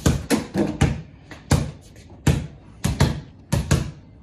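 Two basketballs being dribbled on a hard tiled floor: sharp, uneven bounces, two or three a second, each with a short echo off the room.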